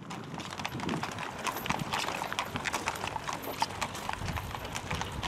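Hooves of a pair of fiaker carriage horses clip-clopping on a paved street, with many quick, irregular clops.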